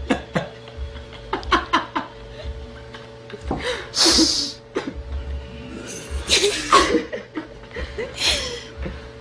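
People laughing in several short bursts, the longest about four seconds in and again around six to seven seconds, over a faint steady hum.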